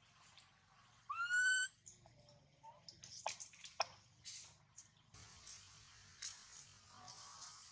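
A long-tailed macaque gives one short coo call, rising in pitch and then levelling off, about a second in. A few sharp scuffs or clicks follow, then faint rustling.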